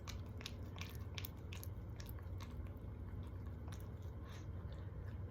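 A person chewing a mouthful of food close to the microphone: many small, irregular mouth clicks and smacks.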